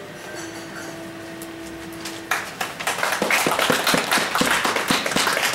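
A faint steady hum, then an audience bursts into applause a little over two seconds in, many hands clapping densely.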